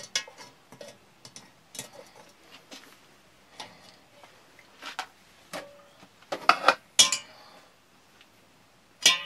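Metal cookware clinking and knocking on a folding camping gas stove as a kettle is lifted off its pot supports and a frying pan is set on. Scattered light clinks, with a louder cluster of knocks about six to seven seconds in.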